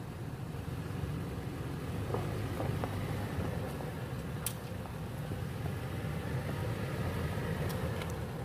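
Toyota 4Runner's engine running steadily at low revs as the SUV crawls over a rocky dirt trail, with a few faint sharp clicks about halfway and near the end.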